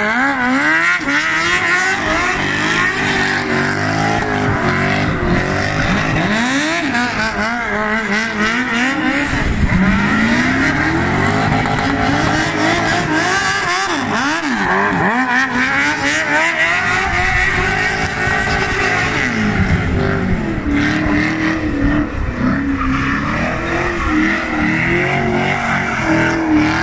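Drift cars sliding in circles, their engines revved hard and rising and falling in pitch over and over, with tyres squealing as they spin.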